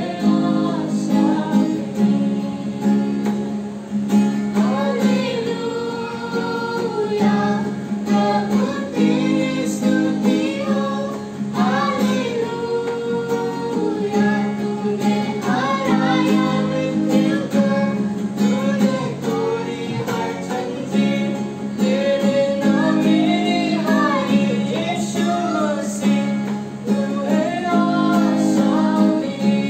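Acoustic guitar strummed in steady chords under a woman's singing, with a young man singing along.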